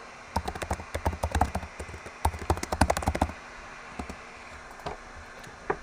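Typing on a computer keyboard: two quick runs of key clicks, then a few single clicks near the end.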